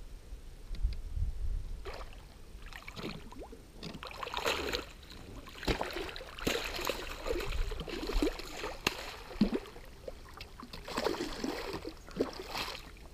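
A hooked wels catfish thrashing at the surface beside a float tube, splashing water in several bursts.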